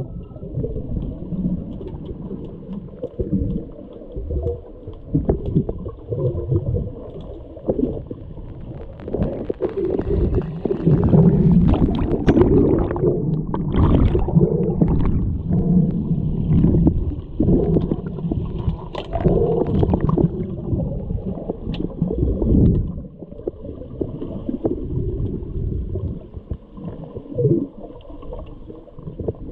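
Muffled underwater sound of pool water churning and gurgling around a submerged camera during underwater hockey play, with scattered sharp clicks and knocks.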